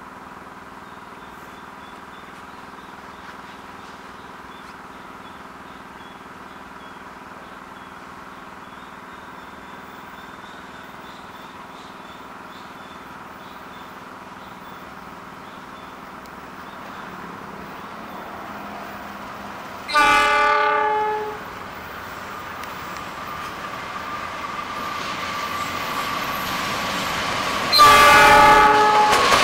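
Diesel-electric freight locomotive (KAI CC 206, GE CM20EMP) approaching, its engine a steady drone that grows louder. It sounds its multi-tone horn twice: a blast of about a second and a half two-thirds of the way in, and a second, louder blast starting just before the end.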